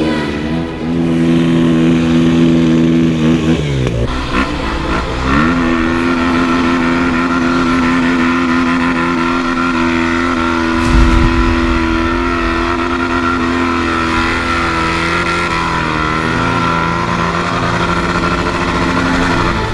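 KTM enduro motorcycle engine held at steady high revs under load. Its pitch drops sharply about four seconds in and climbs back a second or so later, and there is a heavy low thump about eleven seconds in.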